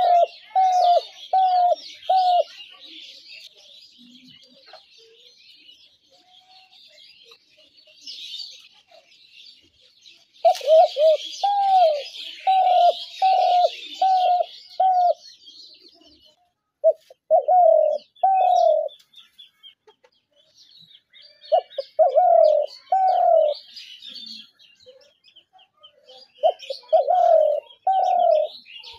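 Spotted dove cooing in bouts of several low, arched notes, five bouts spaced a few seconds apart, over constant high chirping of small birds.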